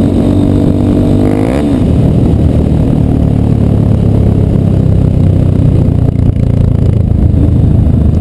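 Yamaha Ténéré 250 single-cylinder engine running through a Roncar Coyote two-way aftermarket exhaust. It holds a steady note, briefly rises in pitch about a second and a half in, then turns to a rougher, louder rumble.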